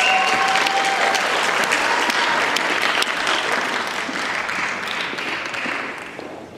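Audience applauding as a dance couple takes the floor, the clapping dying away near the end.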